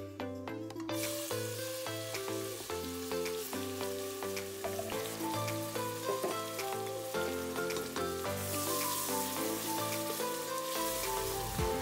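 Finely chopped onions sizzling as they fry in hot oil in a steel pot, with the sizzle starting about a second in. Background music plays throughout.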